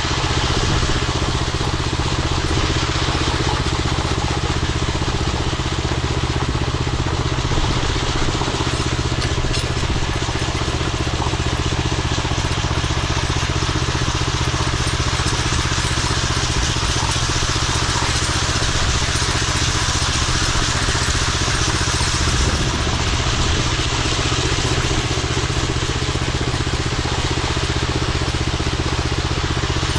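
Concrete power trowel's engine running steadily while the machine finishes a concrete slab.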